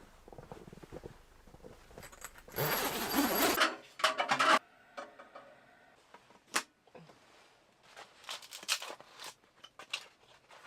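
Scattered clicks, knocks and clinks of small objects being handled, with a louder rushing scrape about a third of the way in, followed by a quick cluster of sharp clicks.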